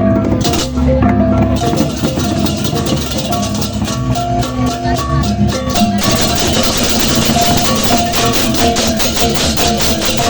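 Balinese gamelan music with gongs, pitched metal percussion and drums played in a fast, dense rhythm. About six seconds in, a bright crashing wash of cymbals joins in.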